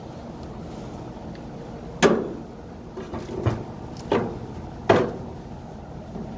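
Metal grill cooking grates being set down into the grill box, giving several sharp metallic clanks. The loudest come about two seconds in and near five seconds, with smaller knocks between.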